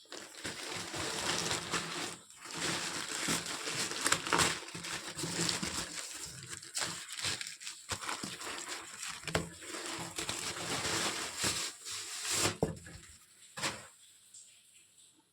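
Packaging being handled: irregular rustling and crinkling, with a couple of sharp clicks near the end before it quiets down.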